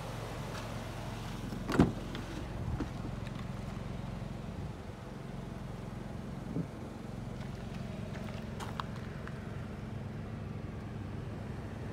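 Toyota Vitz's 1KR three-cylinder engine idling with a steady low hum. There is one loud thump about two seconds in and a few light knocks later.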